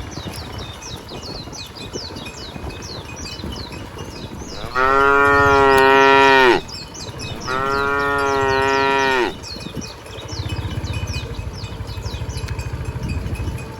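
A cow mooing twice, two long, loud calls of about two seconds each, with a short gap between them. A rapid high chirping carries on underneath throughout.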